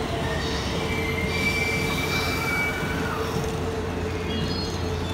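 Series E257 electric train moving slowly along the platform, with a steady low hum and thin high-pitched wheel squeals that come and go.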